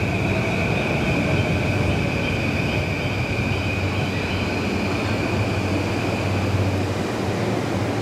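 JR East E235-series electric commuter train pulling out of the station and running off. Its rumble carries a steady high whine that fades after about three seconds, over a steady low hum.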